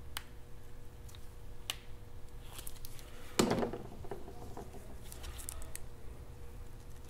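Gloved hands handling and turning a small plastic PTC preheater unit: scattered light clicks and rubbing, with one louder scrape about three and a half seconds in.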